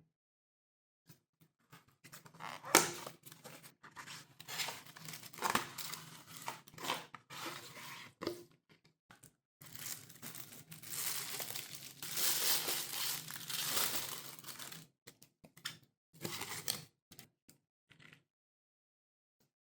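Phone packaging being handled and torn open, with crinkling, rustling and tearing in irregular stretches. A sharp click comes about three seconds in, and a longer, denser stretch of rustling runs from about ten to fifteen seconds in.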